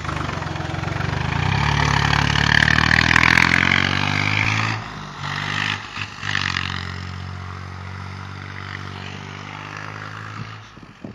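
Massey Ferguson 240S tractor's three-cylinder diesel engine running as the tractor drives through deep snow. It is loudest in the first few seconds up close, drops about halfway through, then fades steadily as the tractor pulls away.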